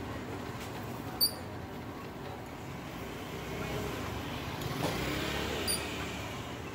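Street traffic noise, a steady rumble of passing vehicles that grows a little louder past the middle, with two short high chirps, about a second in and near the end.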